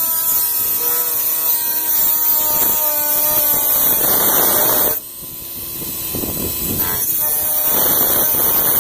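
Dremel rotary tool with a thin cut-off disc cutting galvanized sheet steel: a steady high whine with a grinding hiss. The sound drops suddenly about five seconds in and builds back up over the next few seconds.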